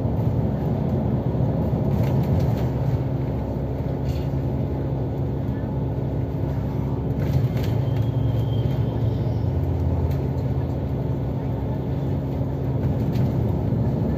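Steady engine and road rumble heard from inside a vehicle cruising along a highway, with a low steady hum underneath.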